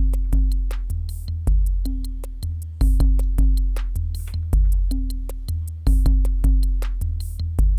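Electronic beat: a drum machine pattern with fast, steady hi-hat ticks and a deep bass line stepping between notes, with occasional snare or clap hits.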